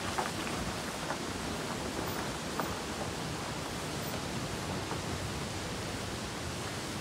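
A waterfall plunging down a rock face, making a steady, even rushing hiss.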